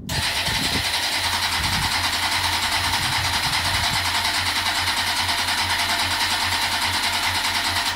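Starter cranking the 2007 Kawasaki ZX-10R inline-four engine in a ZX-7R frame: about eight seconds of continuous, fast, even pulsing as the engine turns over without ever catching, stopping abruptly. The engine gets no fuel; the owner suspects the transplanted Mazda RX-8 fuel pump or its wiring.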